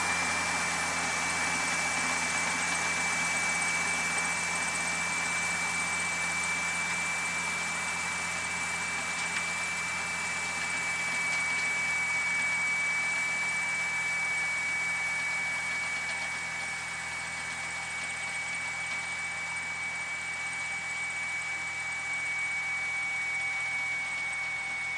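Fendt 712 Vario tractor's six-cylinder diesel engine running steadily under load while driving a power harrow and maize seed drill, growing slightly fainter as it moves away. A steady high-pitched whine sits over the engine sound.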